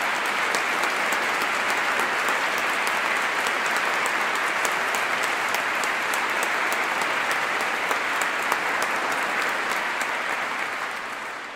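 Congregation applauding, steady clapping that dies away near the end.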